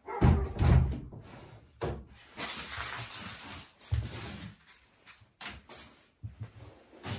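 Knocks and thumps of a long white wall board being set down and shifted on a plastic work table, loudest in the first second, with a few lighter knocks after.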